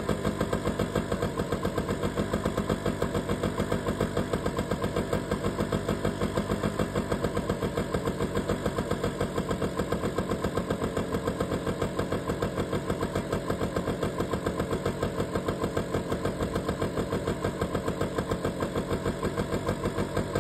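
1991 Honda EZ90 Cub's small single-cylinder four-stroke engine idling steadily after a cold start, an even run of exhaust pulses with no change in speed.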